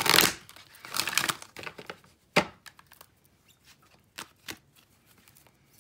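Oracle cards being handled: two rustling shuffles of a deck, then a card slapped down sharply about two and a half seconds in, followed by a few light taps.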